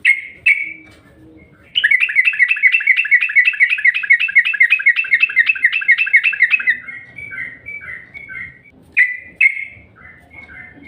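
Yellow-vented bulbul (trucukan) singing: two loud notes, then a fast run of about five bubbly notes a second lasting some five seconds, then softer notes and two more loud calls near the end.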